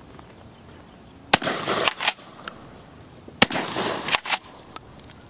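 Remington 887 12-gauge pump-action shotgun fired twice, about two seconds apart, with a ringing tail after each blast. Each shot is followed by two quick clacks of the pump being racked to chamber the next shell.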